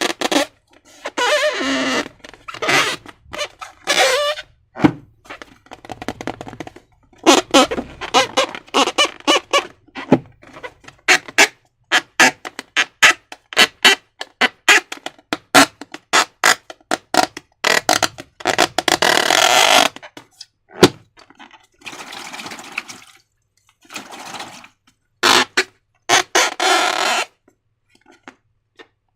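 Slime being squeezed and worked by hand: quick irregular runs of wet, sticky crackles and squelches, with a few longer squishing stretches in between.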